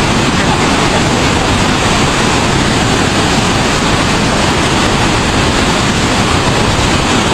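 Fast-flowing floodwater rushing, a loud, even noise without a break.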